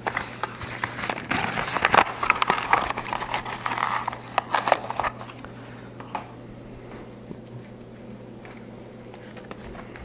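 Packaging crinkling and rustling in the hands, with many small clicks, for about five seconds. Then it goes quieter, leaving a low steady hum and an occasional light tap.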